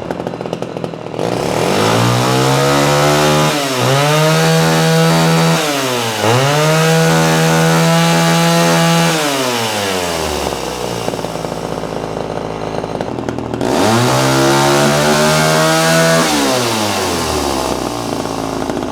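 Homelite Super XL Automatic two-stroke chainsaw idling, then revved up to high speed about a second in and held there for several seconds, with two brief dips. It drops back to idle about ten seconds in, is revved again around fourteen seconds in, and settles back to idle near the end.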